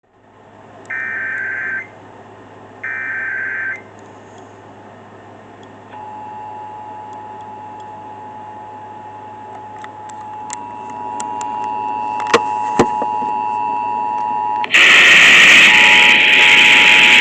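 Emergency Alert System test over FM radio: two short warbling bursts of SAME header data, then about six seconds in the steady two-tone EAS attention signal, growing louder. About fifteen seconds in a loud rush of noise comes in over the tones.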